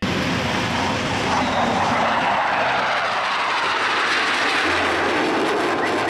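Fighter jets flying past, their jet engines making a steady, loud rushing roar.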